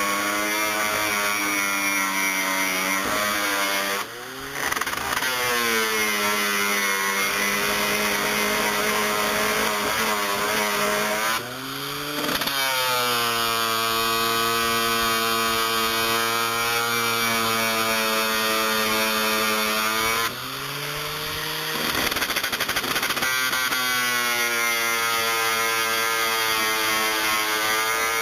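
7-inch high-speed grinder with a shaping wheel running as it works wooden boat stringers, a steady high motor whine. Three times it briefly dips and then climbs back up in pitch, at about 4, 12 and 21 seconds.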